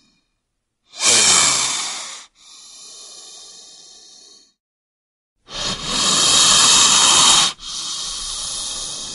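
Bull snake hissing: two loud, forceful hisses, each followed straight away by a longer, softer hiss, the first pair about a second in and the second about five and a half seconds in.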